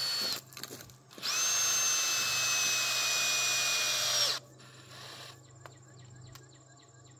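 Cordless drill running: a brief burst at the start, then a steady run of about three seconds with a high whine that sags slightly in pitch before it stops. Faint light clicks follow.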